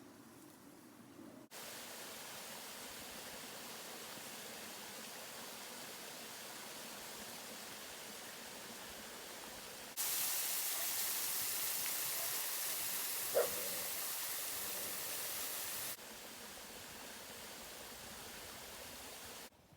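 Steady rushing wind of a snowstorm, cut into several shots so the level jumps up and down abruptly, loudest in the middle stretch. A single short squeak sounds a little after the middle.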